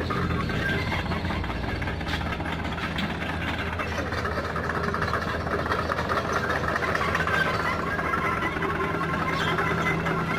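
Komatsu PC45 mini excavator's diesel engine running steadily.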